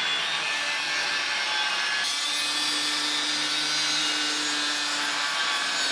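Angle grinder with its disc on a length of steel angle iron, grinding steadily, with a faint motor hum underneath; the grind turns harsher about two seconds in.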